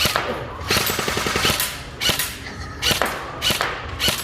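Airsoft guns firing a string of sharp shots, roughly one every half second, with a quicker run of shots about a second in.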